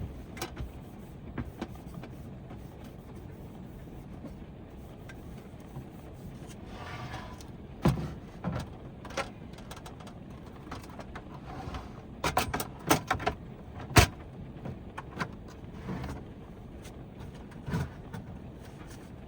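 Steady rain drumming on a camper van's roof, with scattered clicks and knocks of things being handled inside the van, bunched together in the last third; the loudest is a sharp click about three-quarters through.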